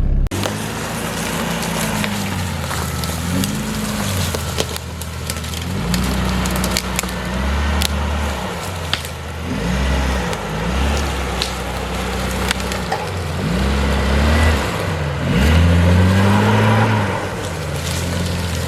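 2001 Jeep Cherokee XJ's engine revving up and falling back again and again under load, with wood cracking and snapping sharply, as the Jeep works its way over a fallen tree on the trail.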